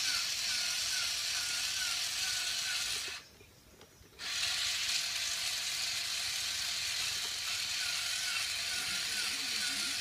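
Motorized Death Stinger scorpion Zoid toy walking under wired remote control. Its small electric motor and gearbox run with a steady whir and a wavering tone that repeats about every two-thirds of a second. The motor stops for about a second, roughly three seconds in, then starts again.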